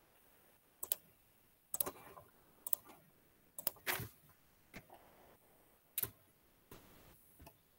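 Computer mouse clicks: a series of short, sharp clicks, roughly one a second, several in quick pairs, as screen sharing is being started.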